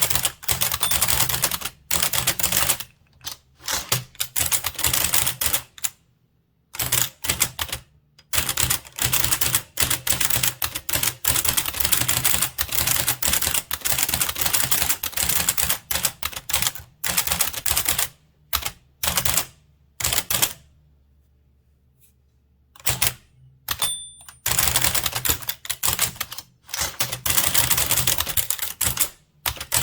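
Blickensderfer typewriter being typed on, its keys and type cylinder clacking in quick runs of keystrokes. The runs are broken by short pauses and one longer pause about two-thirds of the way through.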